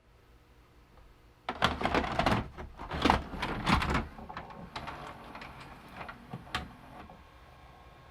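A flurry of sharp clattering knocks and rattles starts suddenly about a second and a half in and is loudest for the next two seconds or so. It then thins to a few scattered clicks over a faint steady hum.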